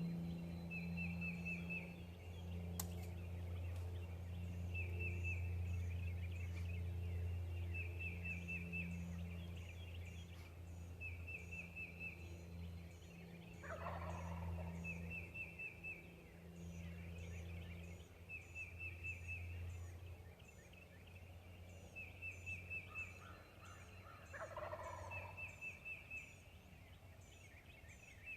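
Wild turkey gobbling twice, about 14 and 24 seconds in, each a rattling call that falls in pitch. Between the gobbles, small songbirds trill and chip repeatedly over a steady low hum.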